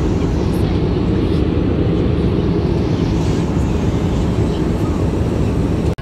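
Airliner cabin noise in flight: the steady low drone of the engines and rushing air. It breaks off abruptly near the end.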